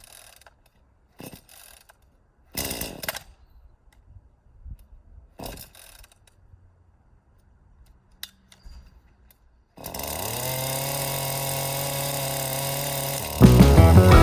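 A few short scraping noises, then a small engine starts about ten seconds in, its pitch rising quickly and then holding steady as it runs.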